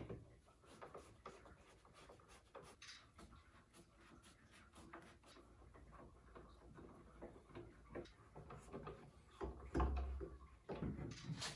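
Hand screwdriver turning screws into a CNC router's metal frame brackets during assembly: faint, irregular clicks and small scrapes, with a couple of louder knocks about ten seconds in and again near the end.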